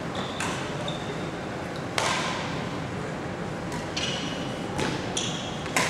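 Badminton racquets striking a shuttlecock in a rally: sharp cracks every one to two seconds, each ringing on in the echo of a large sports hall. Between the hits come short high squeaks of shoes on the court floor.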